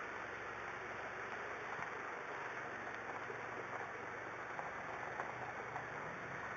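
A faint, steady engine hum under a steady hiss, from the machinery moving the boat trailer, with a few small clicks.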